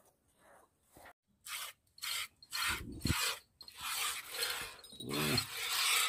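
Milk squirting from a Beetal goat's teats into a plastic bucket during hand milking: a hissing squirt about twice a second, louder from about a second and a half in. A goat bleats briefly near the end.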